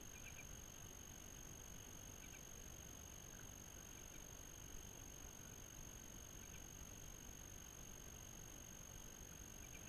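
Near silence: a faint steady hiss, with a few faint short chirps now and then.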